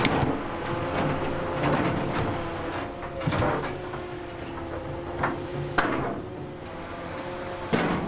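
Large Hitachi hydraulic excavator running with a steady engine and hydraulic hum, while its steel bucket knocks against boulders, giving several separate clunks.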